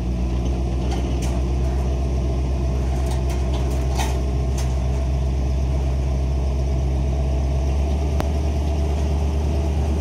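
Truck engine running at a steady, low idle, with a few faint clanks over it.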